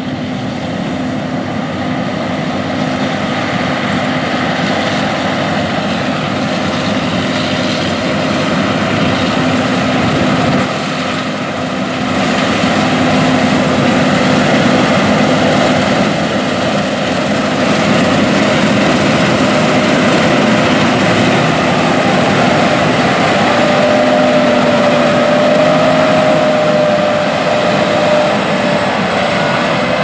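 John Deere S780 combine running under load while cutting wheat with its draper head: a loud, steady drone of engine and threshing machinery. A faint steady whine comes in during the second half.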